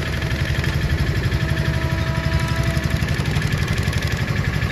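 Engine running steadily close by with a fast, even throb.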